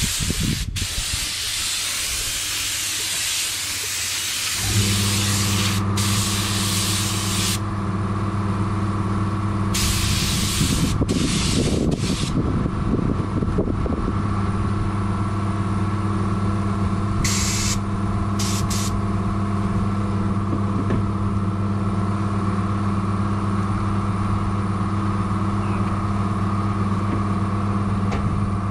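Air-fed spray gun hissing as it sprays the bumper for the first few seconds, then an air compressor starts about five seconds in and runs with a steady hum. Several short hisses from the spray gun come over the hum.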